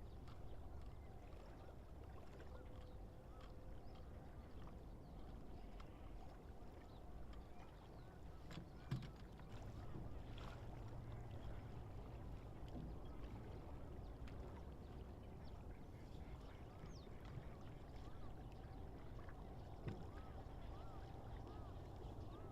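Faint wetland ambience: a steady low rumble with scattered short, faint bird calls and a couple of soft knocks.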